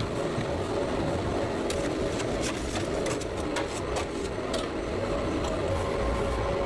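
Industrial meat-processing machinery running: a steady mechanical hum with a held tone, with a run of sharp clicks and clatter in the first few seconds.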